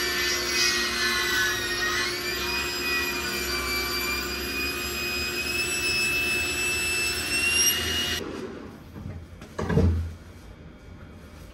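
Sliding table saw ripping the live edge off a thick birch slab: a steady whine of the spinning blade over the noise of the cut, its pitch dipping and recovering about two seconds in. It stops abruptly about eight seconds in, and a single thump follows near the end.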